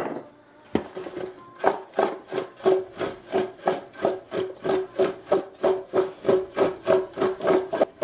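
Quartered raw potatoes tossed in a stainless steel mixing bowl to coat them in olive oil and spices. The chunks tumble and knock against the metal about three times a second, and the bowl gives a short ringing note with each toss.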